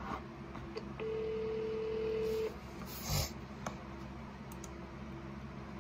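Telephone ringback tone from an outgoing call: one steady ring about a second and a half long, starting about a second in, while the call waits to be answered. A brief thump about three seconds in.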